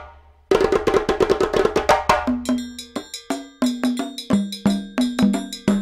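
Background music with a quick, even beat of sharp clicky percussion over a low bass line, starting after a brief gap about half a second in.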